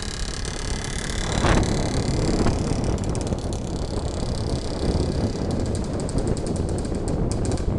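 IZh-56 single-cylinder two-stroke motorcycle running ahead at street speed, heard from a following car over a steady low rumble of road and wind noise. Near the end its exhaust comes through as a rapid string of even pops.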